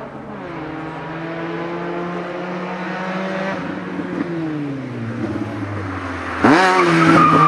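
Race car's engine, a 2-litre 1990 Opel Corsa, climbing toward the bend: the note rises through the gears, dips with a shift about half a second in, and falls away from about three and a half seconds as it slows. About six and a half seconds in it suddenly gets much louder, the revs shooting up and the tyres starting to squeal as the car begins to spin at the corner entry.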